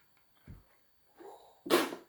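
A toddler coughs once, sharply, near the end. She is coughing because a sip of water went down the wrong way.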